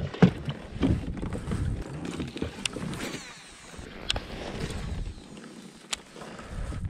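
Knocks and rustling of gear being handled in a fishing kayak, with a few sharp clicks.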